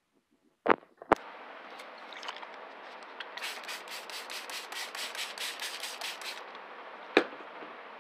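Quick rubbing strokes of a hand tool worked over wet wig hair on paper, about five a second for some three seconds, over a steady hiss. Two sharp knocks come about a second in and another near the end.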